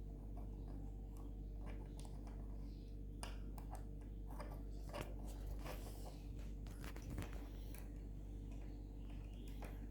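Faint, irregular clicks and snaps of small plastic Lego pieces as a mini Lego figure is handled and its parts moved, busiest in the middle, over a steady low hum.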